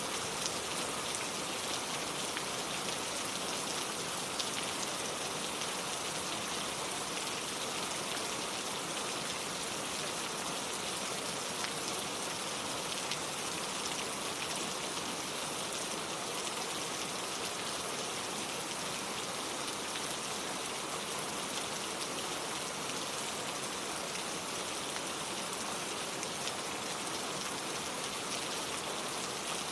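Steady rain falling, a constant hiss of drops with an occasional sharper drip standing out.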